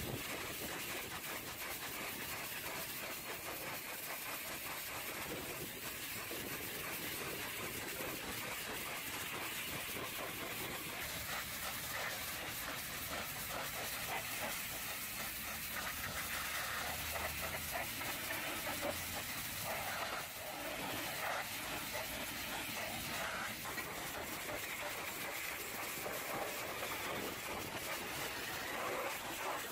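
High-pressure washer jet spraying against a truck's steel fuel tank, cab door and wheel area: a steady hiss of spray and splatter that changes a little in tone as the jet moves over different surfaces.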